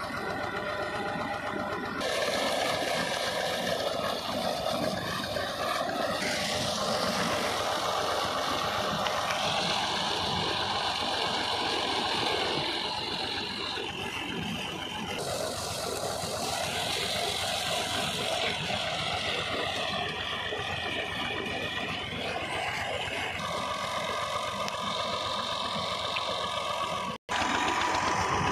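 Tractor diesel engine running steadily under load, driving a 12-inch centrifugal tubewell pump, with water gushing from the discharge pipe. The sound shifts abruptly every few seconds and drops out for a moment near the end.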